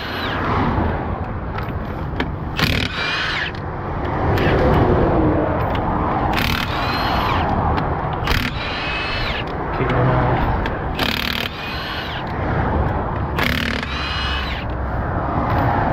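Impact wrench undoing a lorry's half-shaft bolts at the rear wheel hub, hammering in repeated short bursts. Under it runs a steady low rumble of passing motorway traffic.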